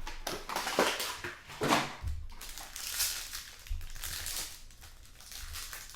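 Crinkling and rustling of card-box packaging being handled and torn open, in irregular bursts with a few clicks and soft thumps.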